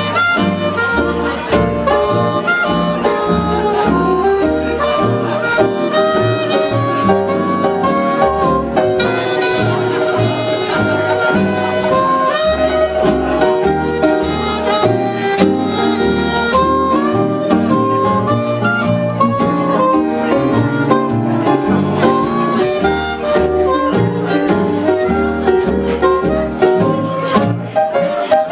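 Small jazz band playing live, a saxophone among the horns, over a steady bass line.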